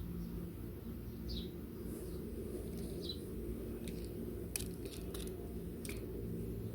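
A bird chirping, a short falling note every second or two, with a few sharp clicks in the middle over a steady low rumble.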